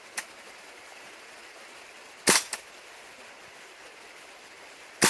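Gas-powered airsoft pistol firing two sharp single shots about three seconds apart, the second near the end, each followed a moment later by a much fainter tick.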